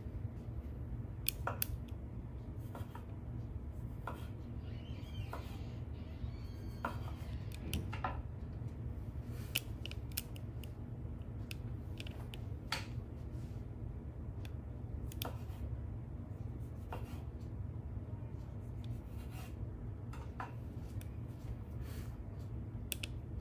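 Kitchen knife clicking on a wooden cutting board while cherry tomatoes are sliced, in scattered, irregular sharp taps over a steady low hum.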